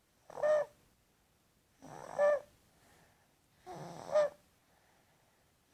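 A toddler snoring in sleep: three snores about two seconds apart, each a short, high pitched note, the second and third led in by a quieter rasp.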